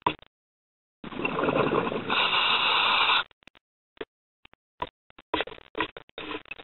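Scuba diver breathing through a regulator, heard underwater: a loud rush of breath and bubbles about a second in, lasting about two seconds. Scattered short knocks and clicks follow.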